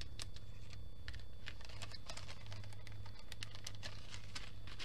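Small resin diamond-painting drills clicking against a plastic drill tray as they are poured out and handled: a run of quick, light, irregular clicks over a low steady hum.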